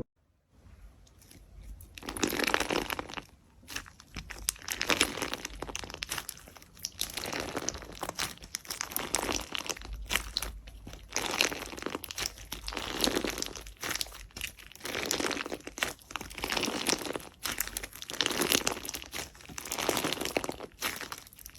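Slime being pressed and squeezed by hand, crackling and crinkling in repeated presses about every two seconds, starting about two seconds in.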